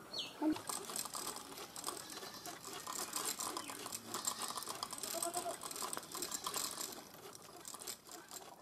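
Hand-turned yarn-winding wheel, a large spoked wheel driving a spindle, and a yarn swift turning as yarn is drawn off the skein. They make a faint, busy rattle of small clicks and ticks.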